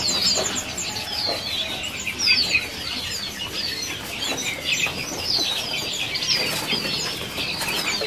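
Many caged songbirds chirping together: a dense, overlapping chorus of short, high, falling chirps.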